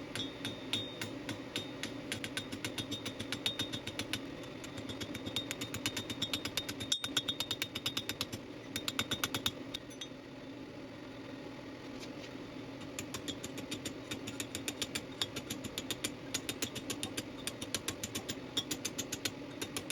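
Rapid, evenly spaced hammer blows on a hot steel tube being forged, several strikes a second over a steady machine hum. The hammering pauses briefly about halfway through, then starts again.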